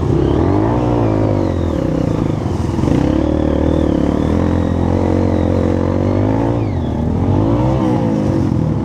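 Dirt bike engine revving under load on a muddy hill climb. Its pitch climbs about a second in, holds steady, dips briefly near the end and rises again with the throttle.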